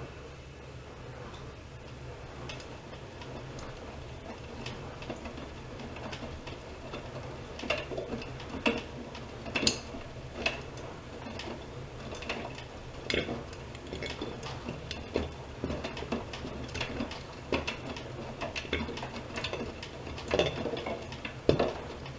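Privileg Dynamic 7420 washing machine running, with a steady low hum and irregular clicks and clattering knocks that grow busier from about seven seconds in.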